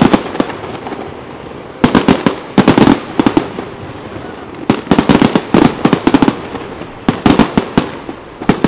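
A fireworks display with shells bursting overhead. Three clusters of rapid, sharp bangs and crackles come a second or two apart, the first about two seconds in.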